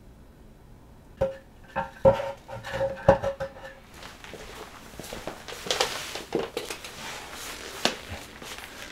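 A speaker woofer being worked loose and lifted out of its wooden cabinet: several sharp knocks with a brief ringing note, then a stretch of scraping and rustling handling noise as it is carried away.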